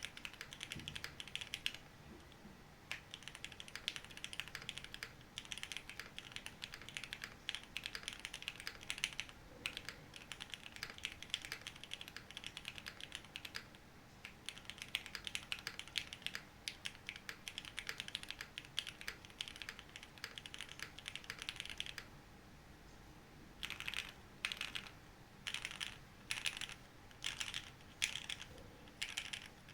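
Typing on a Cycle8 mechanical keyboard fitted with frankenswitches (switches built from mixed parts): a fast, continuous run of key clacks, pausing briefly about two seconds in, about halfway, and again about three quarters through.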